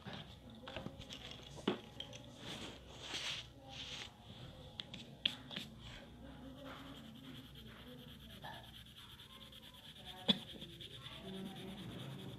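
Colour pencil rubbing across drawing paper as a patch is shaded in, with a few sharp clicks from the pencil and page being handled; the loudest click comes about ten seconds in.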